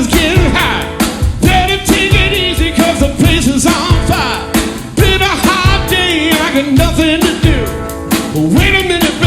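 Live rock band playing 1960s-style rock on Hammond B3 organ, electric guitar and drums, with a steady beat.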